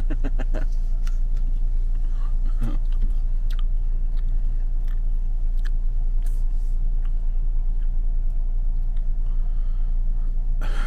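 Steady low rumble of a car's engine and road noise heard from inside the cabin, with a few short clicks scattered through it.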